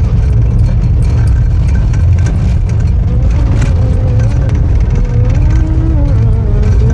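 A car driving along the road, with a loud, steady low rumble of engine and road noise. A wavering whine comes in about halfway through.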